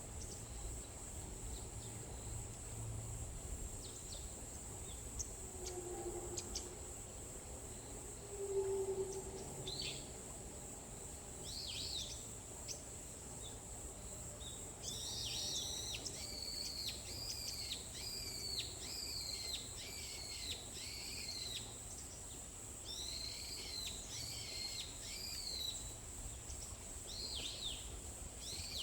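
Forest ambience of wild birds calling: scattered short chirps, then a run of repeated arched whistled notes at about one a second, with two short low hoot-like notes about six and nine seconds in. A steady high-pitched hiss and a low rumble run beneath.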